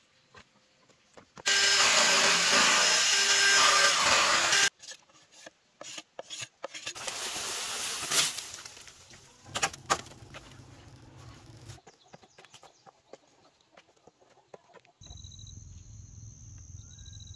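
A tool working a bamboo crib frame: a loud, steady rasping noise for about three seconds, then a second shorter stretch of rubbing with scattered knocks. Near the end the sound changes to a low outdoor rumble with a few steady high chirps.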